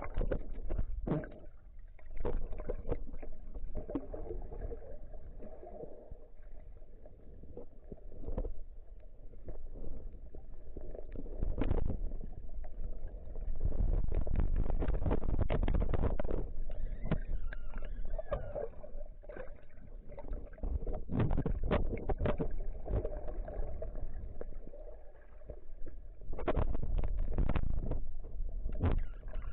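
Water noise picked up by an underwater camera: bubbling and rushing with many small clicks, over a low rumble that is loudest about halfway through and again near the end.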